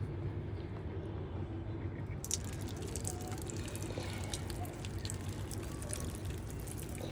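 Water splashing and dripping as a kitten is washed by hand, with many small wet splashes from about two seconds in, over a steady low hum.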